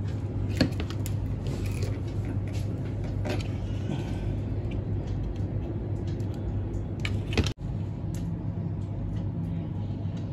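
Steady low background hum with a few light clicks and taps from handling a motorcycle instrument-cluster circuit board during soldering, and one brief sudden dropout about two-thirds of the way through.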